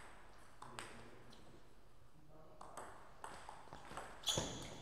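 Table tennis ball clicking off the table and paddles, a few isolated taps at first, then a quicker irregular rally. About four seconds in comes the loudest pair of hits, a hard stroke.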